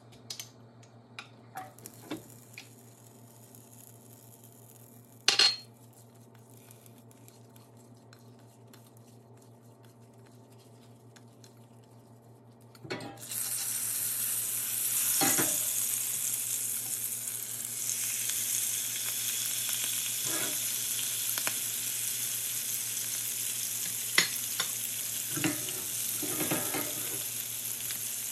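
Oil in a nonstick frying pan, quiet at first apart from a few sharp clicks, then starting to sizzle steadily a little before halfway as butter hits the hot oil. The sizzling carries on with a few knocks of utensils against the pan as shrimp go in and start frying.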